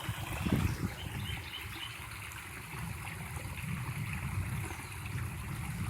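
Floodwater running and trickling steadily, with a low rumble on the microphone.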